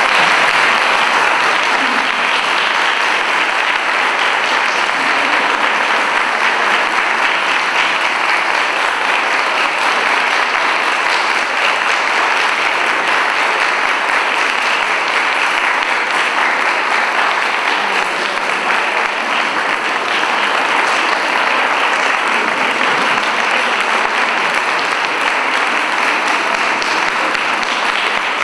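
Audience applauding, a long, steady round of clapping.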